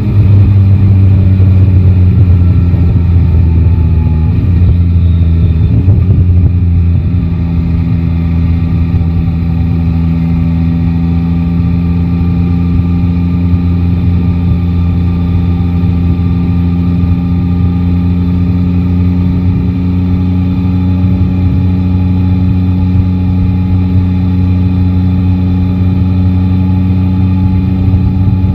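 Yamaha Tracer 9 GT's three-cylinder engine running on the road. It is louder at first, its pitch dips and shifts about five seconds in, then it settles into a steady drone at constant speed.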